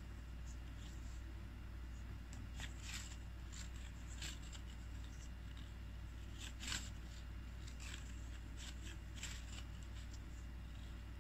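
Crochet hook and thread rustling as stitches are worked: faint, irregular scratchy ticks and rustles over a steady low hum.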